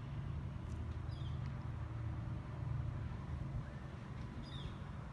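Steady low hum of honeybees flying around an opened top bar hive, with a couple of faint high chirps.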